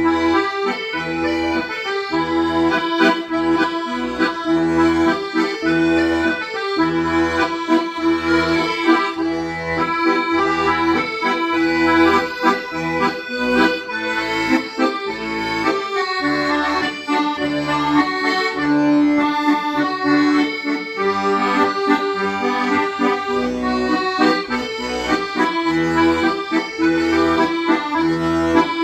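Accordion playing a song: a sustained melody line over a steady, evenly pulsing bass accompaniment.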